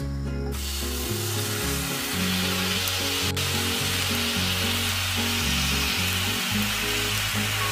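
Water poured onto sugar in a hot nonstick frying pan sizzles and bubbles, starting about half a second in and going on steadily, with background music under it.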